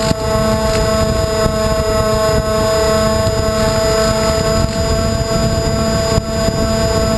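Twin D2826-6 2200kv brushless motors spinning 6x4 propellers, a steady motor whine at constant throttle, heard from the camera on board the plane in flight, with wind rushing over the microphone.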